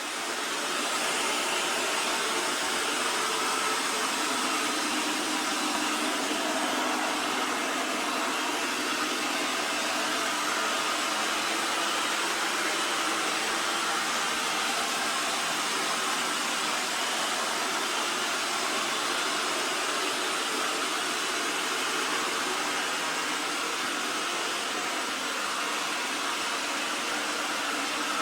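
Robot vacuum cleaner running steadily in sweep-only mode (no mopping): an even whir of its suction fan with a few faint steady hum tones.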